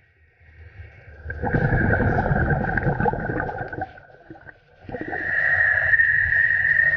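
Scuba diver breathing through a regulator underwater. An exhale of gurgling, crackling bubbles starts about a second in and lasts about three seconds. From about five seconds in comes a steady hissing inhale with a high whistle-like tone.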